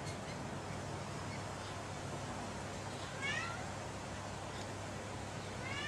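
An animal's short, high, mewing cry about three seconds in, and again at the very end, over a steady background hiss.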